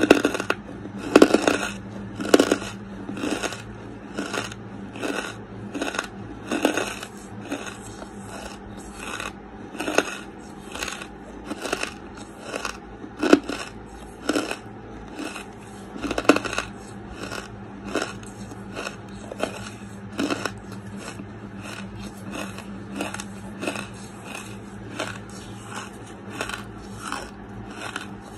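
Close-miked chewing of lump wood charcoal: a steady run of crisp crunches, about one or two a second, with a few louder bites here and there.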